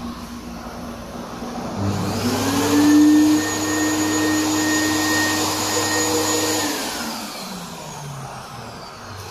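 Air-pop popcorn vending machine's blower motor starting about two seconds in, rising quickly in pitch to a steady hum, then winding down with falling pitch near the end.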